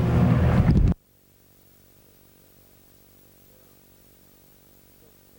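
A steady low mechanical drone, like a running motor, that cuts off abruptly about a second in. After it comes near silence with only a faint hum.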